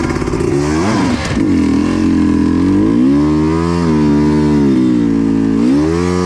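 Dirt bike engine running under throttle, its revs rising and falling repeatedly: a climb about a second in, a dip around four seconds in, and another climb near the end.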